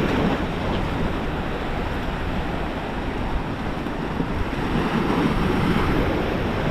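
Ocean waves and surf washing steadily, with wind blowing across the microphone.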